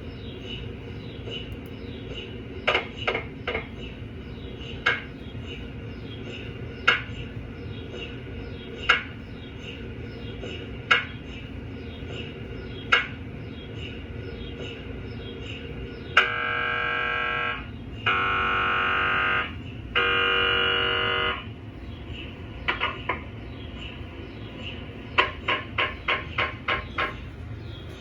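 A GE 1.5 Tesla MRI scanner's gradient coils during a daily quality-assurance scan, over a steady low hum. Sharp single knocks come about every two seconds, then three loud buzzing tones of about a second and a half each, then a quick run of rapid knocks near the end.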